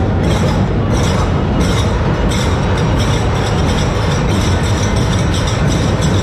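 A dhol-tasha troupe playing: big dhol drums with brass jhanj hand cymbals clashing in a quick, driving rhythm, loud and dense throughout.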